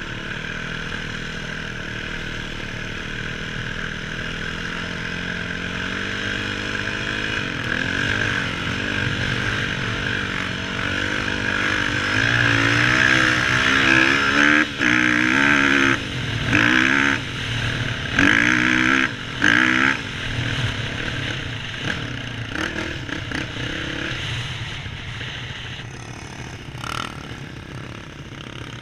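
Yamaha WR450F single-cylinder four-stroke dirt bike engine under way across sand. It climbs in revs, then revs hard with several brief throttle cuts, and eases off near the end as the bike slows to a stop.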